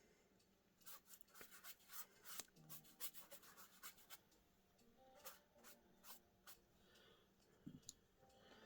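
Faint scratching of a watercolor paintbrush stroking across paper, with scattered light clicks and taps.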